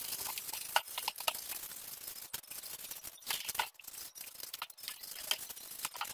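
Utility knife blade trimming and scraping the edges of a foam cut-out: a run of short, irregular scraping strokes.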